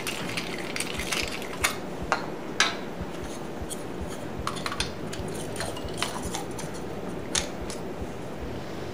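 Light metallic clicks and clinks as the steel shaft and grinding mechanism of a pepper mill kit are handled and fitted together, scattered irregularly over a steady low background hum.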